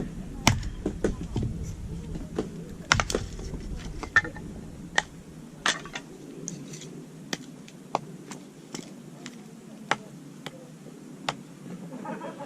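Wood fire crackling: irregular sharp pops and snaps, more frequent in the first few seconds, with a low rumble under them at the start.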